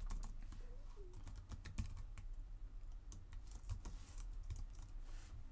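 Typing on a computer keyboard: an irregular run of quick keystrokes and key clicks.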